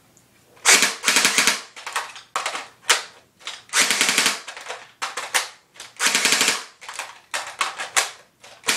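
Airsoft M4 rifle firing on full auto in about a dozen quick bursts, each from a fraction of a second to about a second long, with short pauses between them.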